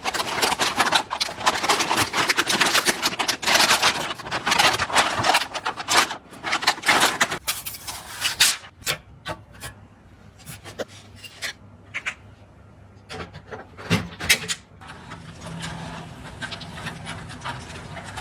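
PC parts being handled during assembly: dense rubbing and scraping for about seven seconds, then scattered clicks and taps, and a low steady hum near the end.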